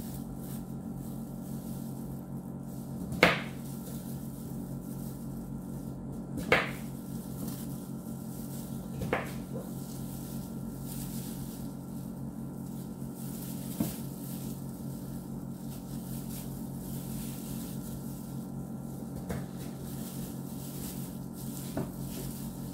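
A steady low hum with a few sharp knocks, about six in all, the loudest about three and six and a half seconds in, as potato chunks are cut off by hand and dropped into an enamel roasting pot.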